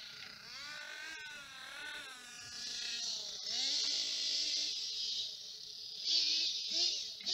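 Nitro engine of a 1/8-scale RC monster truck heard from a distance, revving up and down as it is driven, its pitch rising and falling several times.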